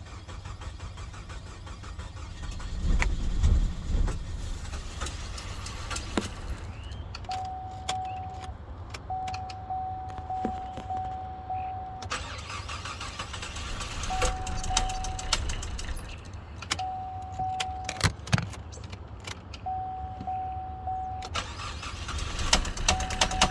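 2016 Chevy Cruze 1.4L turbo four-cylinder being cranked and not starting, with a surge about three seconds in and stretches of fast, even knocking. The owner hears a knock and fears the timing is off. A steady electronic beep sounds in short spells over the cranking.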